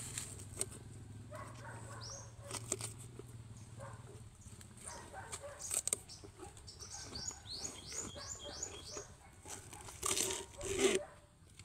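Young calf nuzzling and eating banana from a cloth bag tied to a tree: rustling and crinkling with scattered clicks and mouth sounds, loudest in two rustles near the end. A short run of high chirps comes about two-thirds of the way through.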